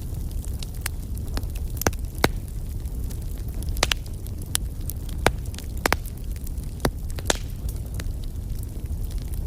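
Wood fire burning with a steady low roar, crackling with irregular sharp pops and snaps of burning logs.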